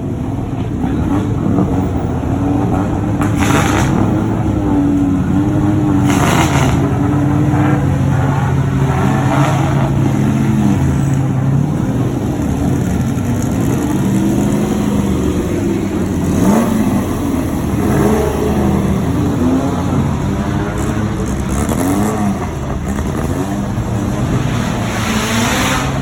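Performance car engine revving hard, its pitch climbing and dropping again and again, with short hissy bursts a few times.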